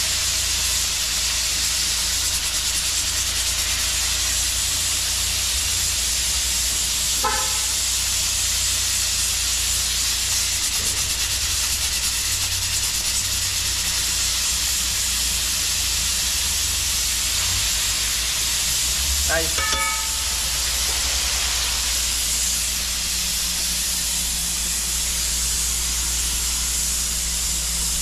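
King fish frying in hot oil, a steady sizzle that holds even throughout, over a low hum. Two brief pitched sounds break in, about seven and twenty seconds in.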